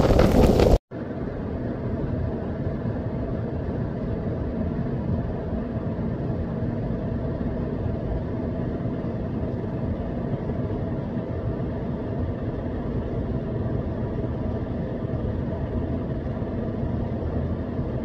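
A compact cab utility vehicle with a front-mounted snowblower running, its engine and blower giving a steady low drone while it throws snow. It starts about a second in, after a short burst of louder wind and road noise that cuts off abruptly.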